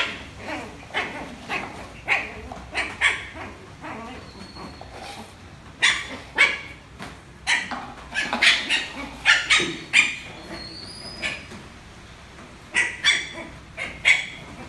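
Lhasa apso puppy barking in short, high-pitched yaps, coming in irregular clusters of a few at a time.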